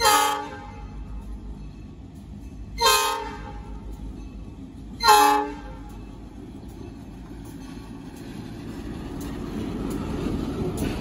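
Three short blasts on the air horn of an EMD diesel locomotive, sounding for the grade crossing: one at the start, one about 3 s in and one about 5 s in. After the horn, the locomotive's engine and wheels build to a low rumble as it rolls past close by.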